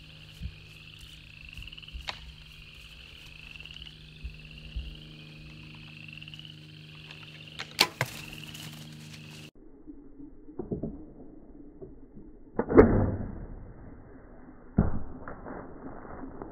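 A bow shot: a loud, sharp thwack with a quick fading tail about three-quarters of the way in, followed two seconds later by a second sharp hit. Before it, faint rising chirps repeat about once a second with a single sharp clack, then cut off suddenly.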